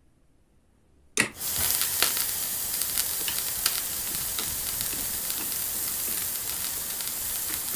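Frying sizzle, like food frying in hot oil in a pan: a steady hiss with scattered crackles, starting suddenly about a second in with a brief thump.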